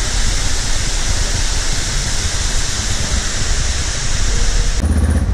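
Small waterfall pouring into a pool: a steady, loud rush of falling water. Near the end it cuts abruptly to a motorcycle engine running.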